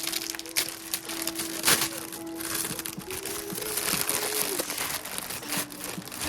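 Packaging crinkling and rustling in quick irregular bursts as a blind box is unwrapped, over soft, steady background music.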